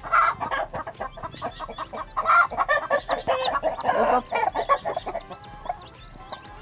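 Native mother hen clucking over her newly hatched chicks, with the chicks' high, short peeps mixed in. The calling is busiest in the first five seconds and thins out after that.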